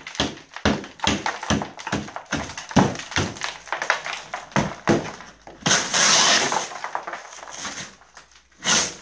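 A hammer knocking through a plasterboard ceiling, about two to three sharp knocks a second for the first five seconds. About six seconds in, the plasterboard cracks and tears away with crumbling, rustling debris, and there is one more crack near the end.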